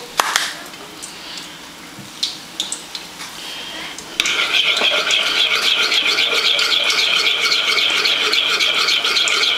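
A few light clicks of a metal spoon against a ceramic bowl, then from about four seconds in brisk stirring: loud, regular scraping strokes of the spoon around the bowl as thick mayo-ketchup sauce is mixed smooth.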